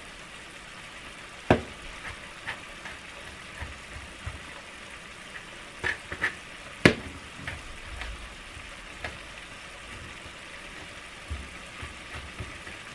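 Strips of bacon frying at low heat in a skillet, a steady sizzle, with scattered sharp taps of a chef's knife on a cutting board as garlic is sliced; the loudest tap comes about seven seconds in.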